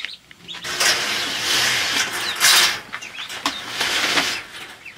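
Wire mesh panel scraping and rattling as it is slid over the top of a galvanized metal stock-tank brooder: a long stretch of scraping, then a few shorter rattles near the end.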